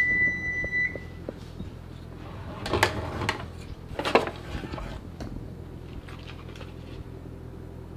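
A kitchen drawer opened and rummaged through, with clattering knocks and rattles around three and four seconds in as a wired probe thermometer is pulled out. A steady electronic beep sounds for about a second at the start.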